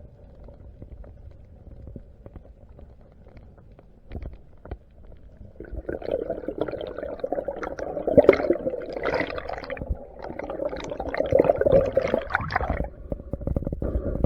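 Water gurgling and bubbling around the camera's microphone during a spearfishing dive, with a low rumble at first, turning louder and crackling with many small clicks from about six seconds in.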